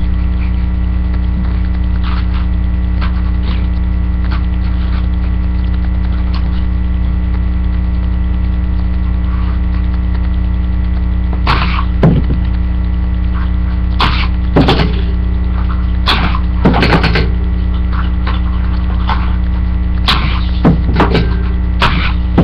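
Steady electrical hum throughout. From about halfway, a scattered series of sharp clacks and knocks as die-cast Hot Wheels cars shoot along and bang against the plastic track.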